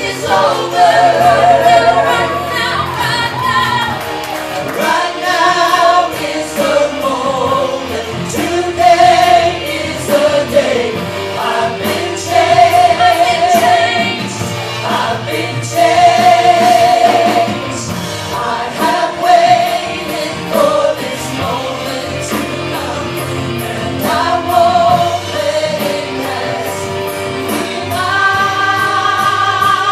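Live church worship band performing a song: several singers on microphones sing together over electric bass and keyboard, with long held notes sung with vibrato.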